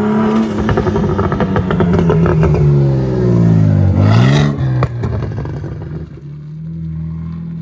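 BMW 335i's turbocharged straight-six driving past under light throttle, its engine note falling, then rising and dropping quickly as the car goes by about four seconds in, with loud exhaust pops and crackles. The sound fades as the car pulls away.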